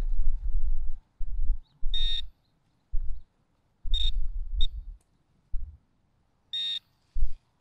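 A metal detector gives four short, high-pitched beeps over repeated low thuds of digging in dirt, as a target is being dug up.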